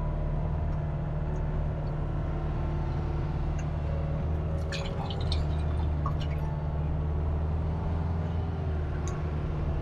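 Kubota RX-503S mini excavator's diesel engine running steadily, heard from inside the cab. A few sharp clicks and rattles come about five seconds in and again near the end.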